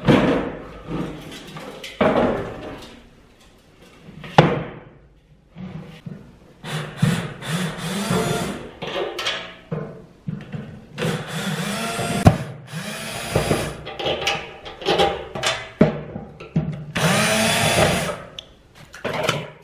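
A power drill-driver drives screws through rubber feet into the rice cooker's sheet-metal body, its motor whining up and down in several short runs. The metal shell knocks and clatters as it is handled near the start.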